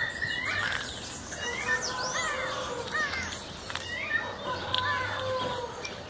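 Mixed chorus of several bird species calling and singing at once: many short whistled notes, chirps and sliding calls overlapping throughout, with some harsher calls among them.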